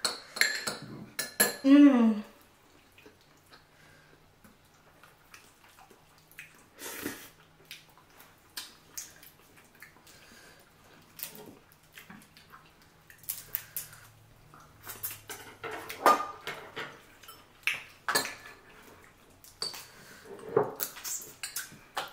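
Scattered clinks, clicks and clatters of lobster and crab shells and utensils against plates while eating seafood, with quiet stretches in between.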